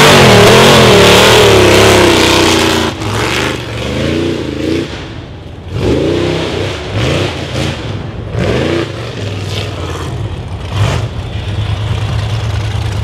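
Rock bouncer's engine revving hard, its pitch surging up and down with the throttle; loudest for the first three seconds, then shorter bursts of revs, settling to a lower, steadier run near the end.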